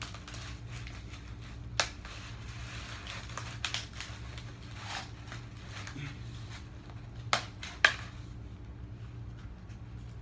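Handling noises from repotting orchids: small plastic containers and loose potting medium being handled, with a few sharp clicks and knocks and some rustling about two to four seconds in. A pair of clicks near the end is the loudest. A steady low hum runs underneath.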